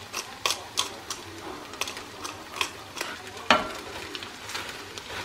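Wooden spatula stirring onions in a thick sauce in a stainless steel frying pan, with irregular scrapes and knocks against the pan over a low sizzle; the loudest knock comes about three and a half seconds in.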